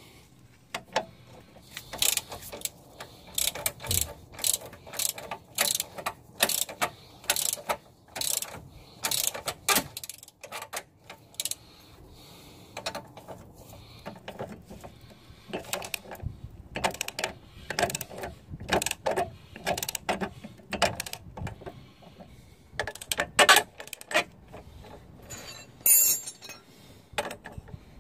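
Hand socket ratchet clicking in runs of strokes as a bolt on the car's front suspension is turned, with short pauses between runs and metal clinks of the tool on the bolt.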